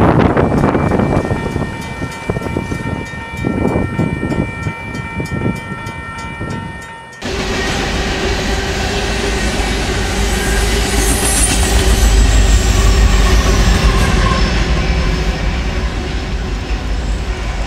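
A freight train's cars rolling away and fading, with steady high ringing tones. About seven seconds in, it changes abruptly to a close mixed freight of tank cars and boxcars passing, with a deep diesel locomotive rumble that is loudest toward the middle of the passage.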